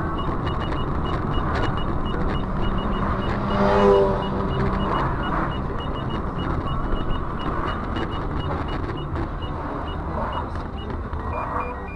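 Vehicle road and engine noise from a dashcam clip, with a high beep repeating about three times a second and a short, loud pitched blare about four seconds in.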